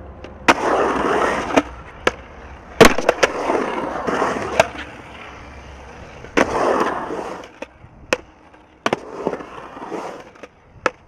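Skateboard wheels rolling on a concrete bowl, with several sharp clacks as the board and trucks hit the concrete. A rolling run follows each of the loudest clacks.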